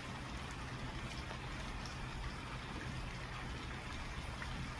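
Steady rain falling on tree leaves, an even hiss of drops with a low steady rumble underneath.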